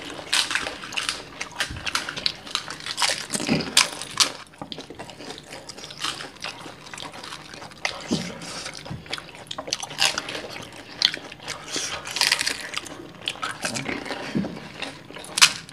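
Two people eating fuchka (pani puri): crisp hollow puri shells cracking and crunching between fingers and teeth, wet slurps and drips of the sour filling water, and chewing, in irregular bursts with a loud crunch near the end.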